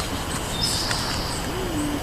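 Steady wind rumbling on the microphone, with a single high whistled bird note a little after half a second in.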